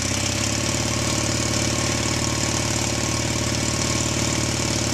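Air-cooled Honda motorcycle engine idling steadily with an even, fast beat, just after being jump-started through jumper cables on its starter solenoid.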